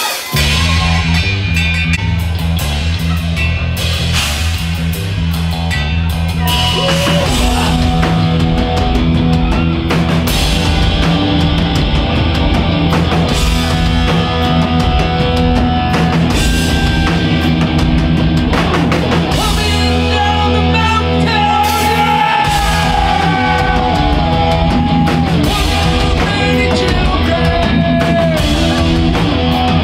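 Rock band playing a loud song with drum kit, electric guitars and bass guitar, and a lead singer's voice. The full band comes in suddenly right at the start.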